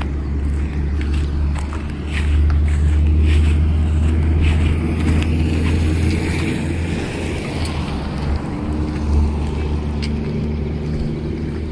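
Steady low rumble of travel along a road, with a faint hum and a few light clicks.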